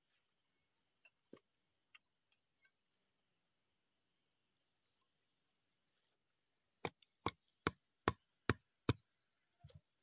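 Steady high-pitched drone of insects. From about seven seconds in, six quick sharp knocks, about two and a half a second, as a bamboo stake is knocked down into the soil, then one softer knock near the end.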